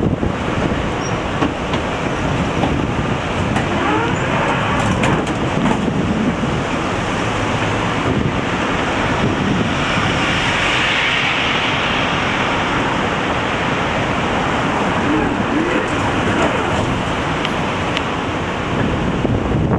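Steady road traffic noise heard from a tram, with a light box truck passing close by about halfway through.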